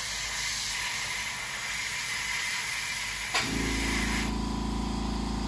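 Airbrush hissing as it sprays. About three and a half seconds in there is a click, and an air compressor motor starts and runs steadily.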